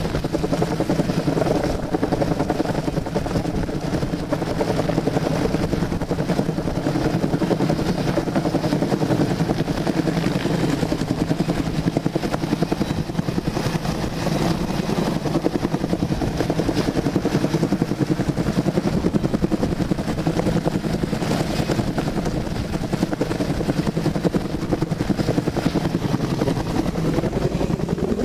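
Helicopter hovering overhead, heard from close beneath it on the hoist cable. Its rotor beats rapidly and evenly over a steady engine drone, holding at one level throughout.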